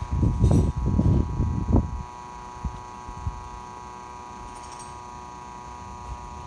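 Automatic transmission fluid exchange machine running with a steady electric hum and whine. Low rumbling noise fills the first two seconds, and two faint knocks come about a second apart near the middle.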